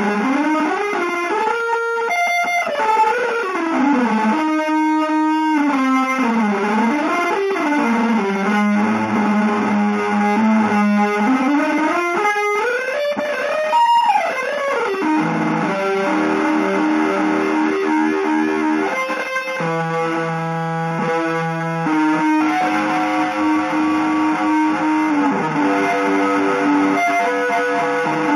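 Electric guitar playing a free, atonal line whose notes glide up and down in pitch for the first half, then settle into longer held notes over a lower sustained note.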